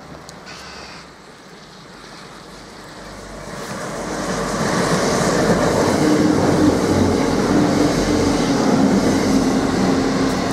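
Arriva Trains Wales diesel train approaching and passing close by at speed: engine drone and wheel and rail noise build from about three seconds in and stay loud to the end.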